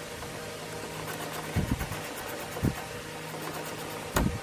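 Dull knocks from parts being handled in a car's engine bay: two close together about one and a half seconds in, another a second later, and the loudest near the end. Under them runs a steady low mechanical hum, like an engine idling.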